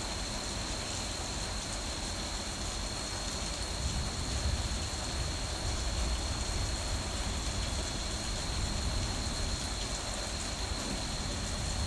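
Steady heavy rain, with a low rumble that swells about four seconds in and fades again near the end.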